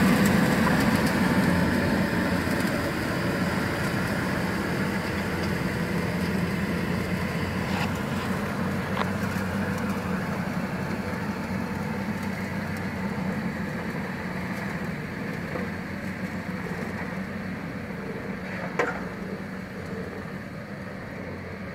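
Hako Sweepmaster B 1200 RH ride-on vacuum sweeper running at work, a steady mechanical hum that fades as the machine drives away over brick paving. One sharp knock near the end.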